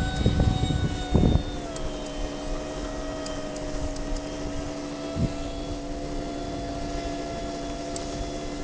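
Electric ducted fan of a Kyosho Panavia Tornado EDF-55 model jet, running with a steady whine; its pitch drops a little about one and a half seconds in, then holds. Low thumps fall in the first second and a half.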